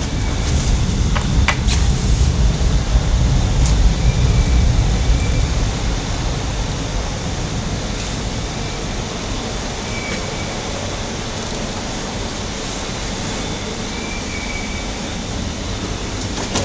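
Low, steady rumble of a metro train in the station, swelling over the first few seconds and then easing to a constant hum. Two sharp clicks come about a second in, and a few faint short high tones sound later on.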